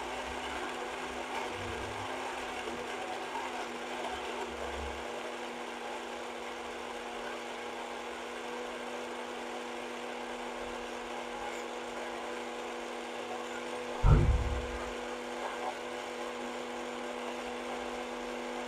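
Black+Decker personal sports blender motor running steadily at a constant pitch, held on by its push button. It is blending apple, pomegranate and ice with added water into juice, and now grinding it well. A single loud thump comes about three-quarters of the way through.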